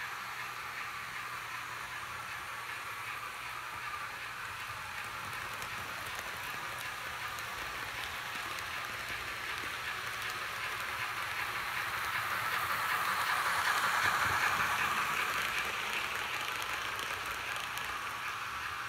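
Roco model passenger coaches rolling on the track, a steady rolling noise of metal wheels on rails. It swells as the coaches pass close, is loudest about two-thirds of the way through, then eases.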